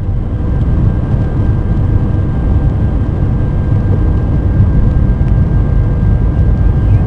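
Airbus A319 jet engines at climb power just after takeoff, heard inside the cabin over the wing: a loud, steady rumble with a faint steady whine above it.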